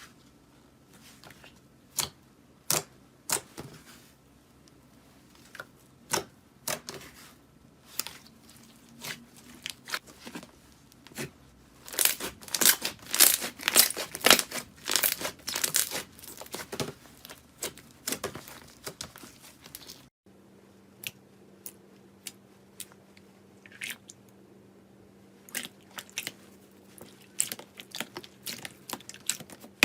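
Slime being pressed and squeezed by hand, giving sharp separate clicks and pops, with a loud run of dense crackling in the middle.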